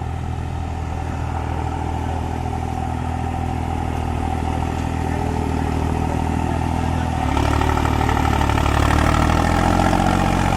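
New Holland 5620 tractor's diesel engine running steadily under load as it pulls a super seeder through paddy stubble. About seven seconds in, the sound gets louder and fuller.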